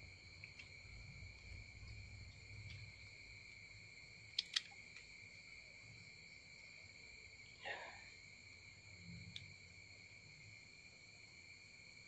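Faint, steady chirring of crickets, a high trill held at a few pitches, with two light clicks about four and a half seconds in and a brief rustle a few seconds later.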